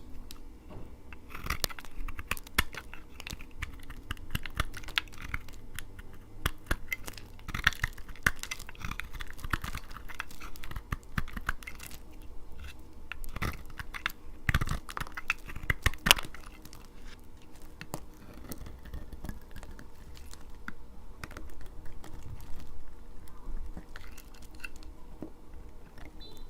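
Dry laundry soap being cut with a knife: a dense run of crisp crackling clicks and small crunches as the blade breaks through the hard, brittle soap, thinning out in the last third.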